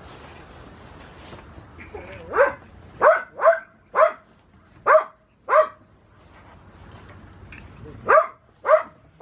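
A dog barking in short, sharp barks: a run of six starting about two seconds in, then two more near the end.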